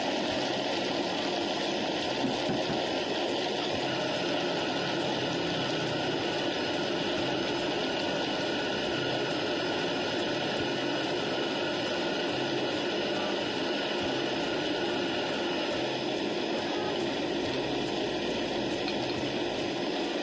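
Electric countertop blender running steadily, crushing ice into a blended drink. It is a dense, even whir with no pauses or changes in speed.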